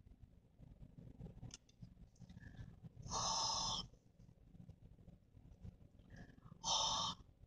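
A person breathing out hard twice, once for just under a second about three seconds in and again briefly near the end, over a low steady rumble.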